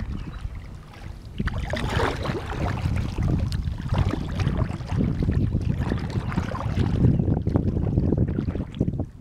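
Wind buffeting the microphone, a loud uneven rumble, over river water rushing and splashing, with splashier stretches about two and four seconds in.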